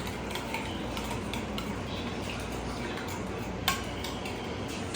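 Light clinks and taps of kitchenware against a bowl as raw chicken pieces are put into marinade, with one sharper knock about three and a half seconds in.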